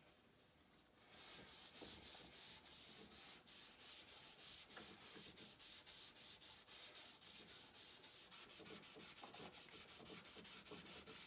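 A rusty metal lathe surface being scrubbed by hand with an abrasive. Quick back-and-forth scratchy strokes, about four a second, start about a second in and keep an even rhythm.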